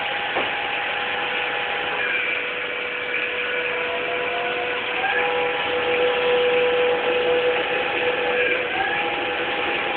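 CNC lathe running: a steady motor whine over machining noise, with the whine gliding to a new pitch a few times.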